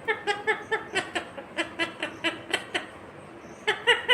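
Ringneck parakeet calling in a rapid run of short, clipped notes, about four or five a second, then a brief pause and a few more notes near the end.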